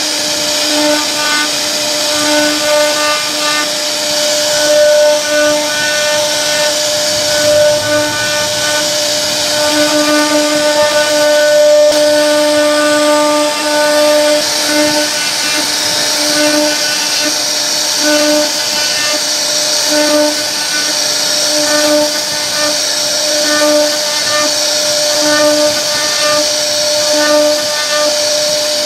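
CNC router spindle running at a steady whine while its bit carves a relief pattern into a wooden door panel, with a hiss of cutting over it. A lower tone underneath keeps cutting in and out every second or two.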